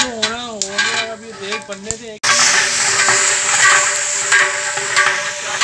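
Onions frying and sizzling in hot oil inside a large cooking cauldron over a wood fire, stirred with a long-handled ladle. The sizzling starts abruptly about two seconds in; before that, a wavering voice is heard.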